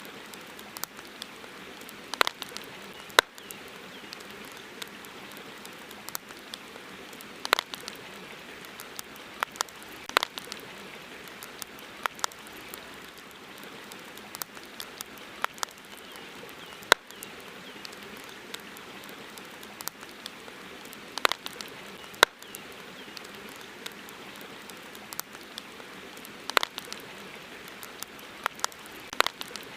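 Campfire crackling: irregular sharp pops and snaps, some in quick clusters and a few louder single cracks, over a steady background hiss.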